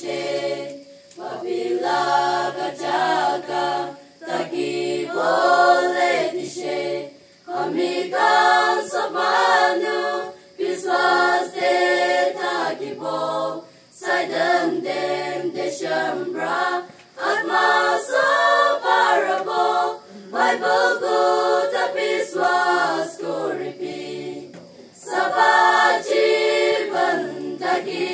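Church choir of young mixed voices singing a hymn a cappella, line by line with brief pauses between phrases.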